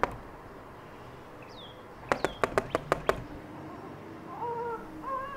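Knuckles knocking on a closed door: one knock at the start, then a quick run of about six raps about two seconds in. About four seconds in, a faint, wavering baby's cry starts up from behind the door.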